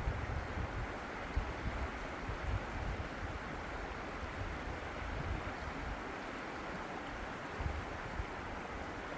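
Steady rushing outdoor noise, with irregular low gusts of wind buffeting the microphone, heaviest in the first few seconds.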